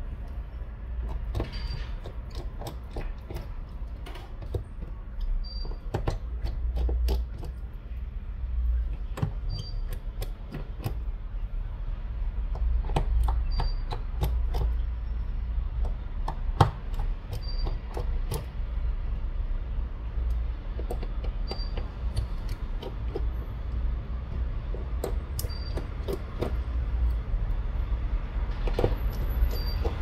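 Scattered small clicks and taps of a precision screwdriver working tiny screws out of a phone's plastic midframe and the screws being set down, over a steady low hum.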